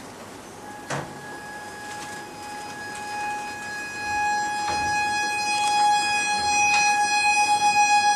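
A single held musical note from an instrument, steady in pitch with bright overtones, swelling louder from about four seconds in and wavering near the end, with a few soft knocks along the way.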